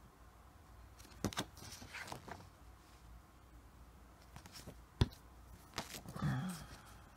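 Paper instruction leaflets being handled and flipped over: light rustles and scattered taps, with one sharp click about five seconds in.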